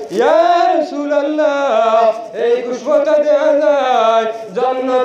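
A man's voice chanting in the melodic, sung style of an Islamic sermon, holding long notes that slide up and down, with brief breaks between phrases.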